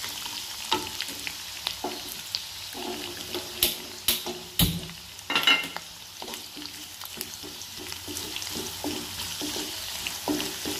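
Chillies, curry leaves, ginger and garlic sizzling in hot coconut oil in a nonstick pan while a spatula stirs and scrapes them. A few sharper knocks of the spatula against the pan come between about three and a half and five and a half seconds in.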